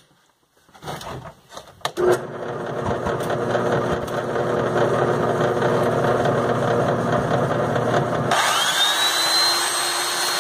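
A few handling knocks, then a portable belt sander switched on about two seconds in and running steadily. Near the end a second motor spins up with a rising whine and the noise turns harsher, as a steel bolt spun in the drill press is ground down against the sanding belt.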